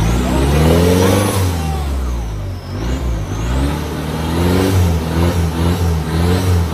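Diesel engine of a modified off-road 4x4 revving hard under load as it works to climb out of a mud hole. The revs climb about half a second in, then surge and drop again and again.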